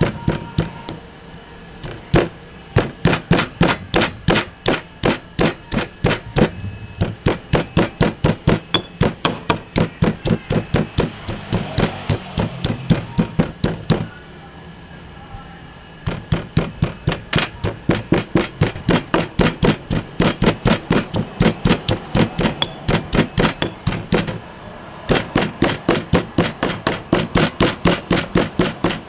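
Stone pestle pounding in a stone mortar, crushing shallots, garlic and chillies into a spice paste: a steady run of sharp knocks, about three a second, with a few short breaks, the longest about halfway through.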